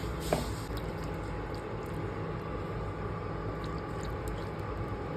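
Spice-marinated chicken frying in hot oil in a pan: a steady sizzle with faint crackles.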